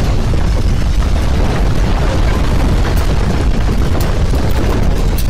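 Loud, deep rumble of a landslide, with a few sharp cracks in the second half.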